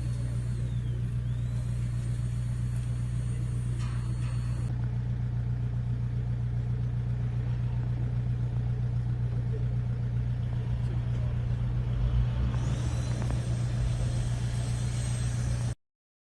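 A motor running with a steady low drone, cutting off abruptly near the end.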